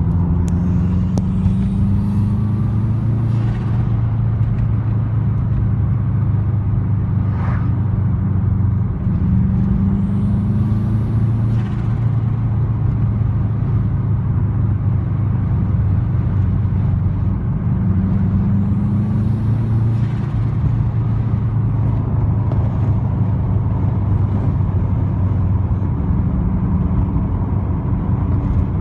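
Subaru Impreza WRX's turbocharged flat-four engine idling and being revved three times, each rev ending in a short hissing turbo flutter as the throttle closes.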